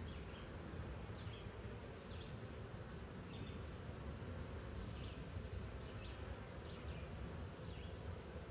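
Honeybees buzzing at the entrance of a swarm trap, a faint steady hum of many bees fanning and flying; the fanning is the colony's signal that the queen is inside and this is their new home.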